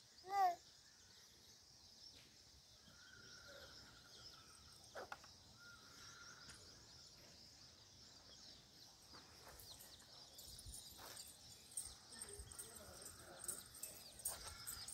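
Quiet rural outdoor ambience: a steady high hiss with a few faint bird chirps, and one short, loud, voice-like call about half a second in.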